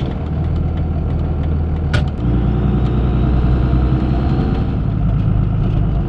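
Vehicle engine and road noise heard from inside the cab as it turns in and rolls slowly, a steady low rumble. A single sharp click comes about two seconds in, after which the rumble grows a little louder.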